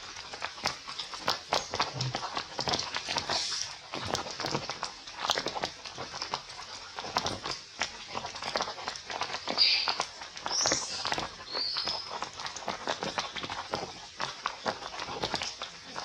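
A dense, irregular patter of small taps and rustles, with a few short high squeals from a baby monkey about ten seconds in.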